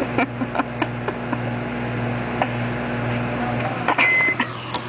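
Microwave oven running with a steady hum and scattered sharp clicks while the cookie inside smokes and burns. The hum cuts off about three and a half seconds in, and a short high end-of-cycle beep follows.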